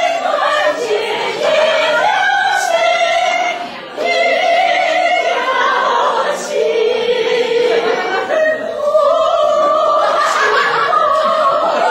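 A woman singing in an operatic style, with long held notes that step up and down the scale.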